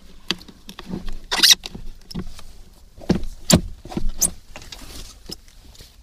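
Irregular knocks and clatter of someone moving about and handling things inside a camper van, over a steady low hum; the two loudest knocks come about a second and a half and three and a half seconds in.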